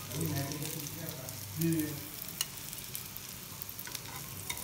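Oil sizzling and crackling with fine pops as chicken shami kababs shallow-fry in a pan. Two short low sounds stand out, one shortly after the start and a louder one just under two seconds in.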